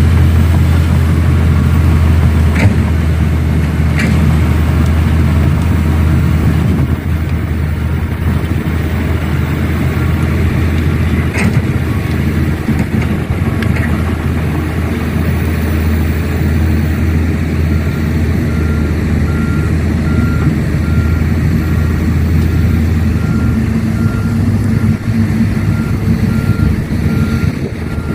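Heavy-equipment engine running steadily with a deep drone and a few sharp knocks in the first half. A reversing alarm beeps at an even pace through the last third, and the drone eases shortly before the end.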